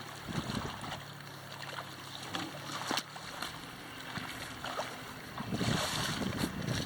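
Moving river water and wind on the microphone, with a few light knocks and a louder rush of water about five and a half seconds in.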